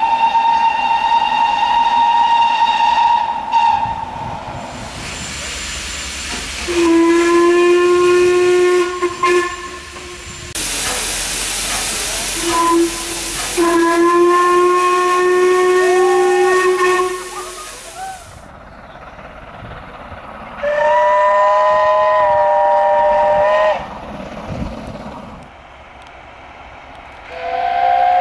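Several steam locomotive whistles in turn. First comes a higher single-note whistle lasting about three seconds. Then deeper whistles sound twice over a loud rush of escaping steam, followed by a chord-like chime whistle of about three seconds, and another chime whistle begins right at the end.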